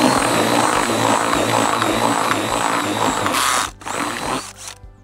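Cordless drill stirring a batch of groundbait (corn-based feed wetted with water), its motor whining steadily over the churning of the mix. It stops briefly near the end, runs again for under a second, then stops.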